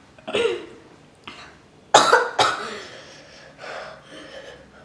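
A young woman coughing as a very hot chili chip burns her throat: a short throaty sound near the start, then two sharp coughs close together about two seconds in.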